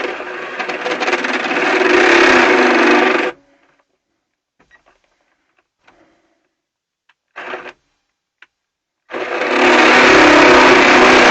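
Cordless drill boring into a thin aluminium panel in two runs of about three seconds, with a pause and a few faint clicks between; the first run builds up in loudness. The drill's battery is running low.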